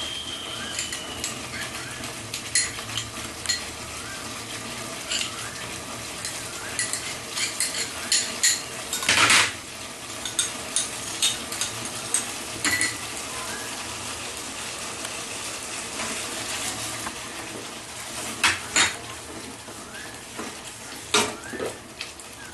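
A pan of masala gravy with yogurt and cashew-poppy paste being stirred: a utensil scraping and knocking against the pan over a steady sizzle, with scattered clinks, the loudest about nine seconds in.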